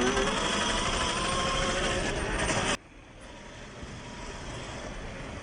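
Axial SCX10 III RC rock crawler's 45T 540 brushed motor and gears whining under load, rising slightly in pitch, over grainy crunching of tyres on rock. About three-quarters of the way through the first half it cuts off abruptly, leaving a much quieter motor hum that slowly grows.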